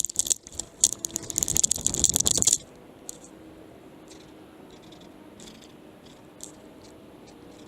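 Loud rattling and scraping from a harness-mounted action camera being shaken as the dog moves. It stops suddenly about two and a half seconds in, leaving only faint scattered clicks.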